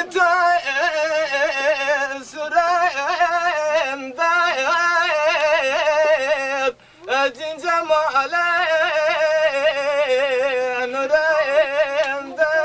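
A man singing a Kurdish folk song unaccompanied in a high voice, holding long notes with a wavering, ornamented pitch. He breaks off briefly about seven seconds in, then carries on.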